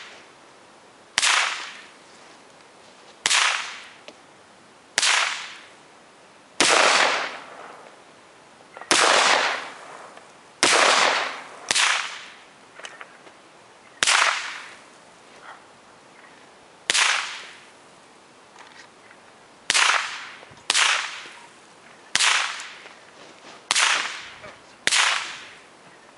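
A string of about fourteen single gunshots fired one at a time at uneven gaps of one to three seconds. Each is a sharp crack with a trailing echo of about a second.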